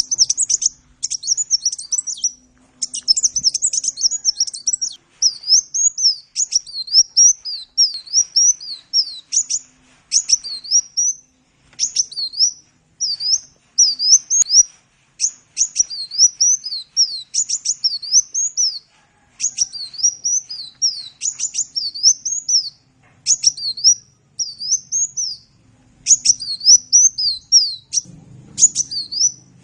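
Sunbird (the 'kolibri' of Indonesian bird-keeping) singing a fast, high twittering song of sharply sweeping notes. It comes in bursts of a second or two, separated by short pauses.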